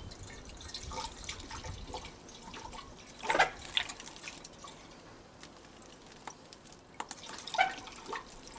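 Paraffin being poured through a funnel into a blowlamp's fuel tank, trickling and dripping, with a couple of brief louder splashes about three seconds in and near the end.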